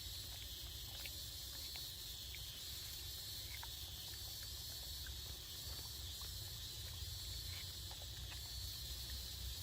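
Steady high-pitched drone of insects, with a low rumble underneath and a few faint scattered clicks.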